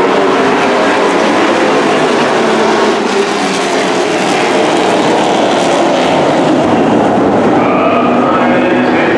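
Engines of several dirt-track race trucks running hard around the oval: a loud, continuous engine din whose pitch rises and falls as the trucks pass.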